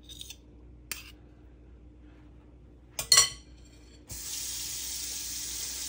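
Metal spoons tapping and scraping lightly, then one loud sharp clink with a brief metallic ring about three seconds in, as a spoon is set down. A steady hiss starts suddenly about a second later and keeps on.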